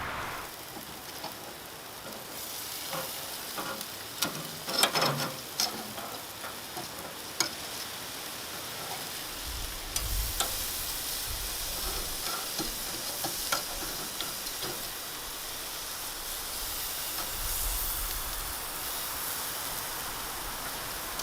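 Chicken thighs sizzling on a barbecue grill, a steady crackling hiss, with a cluster of sharp clicks and knocks about four to six seconds in.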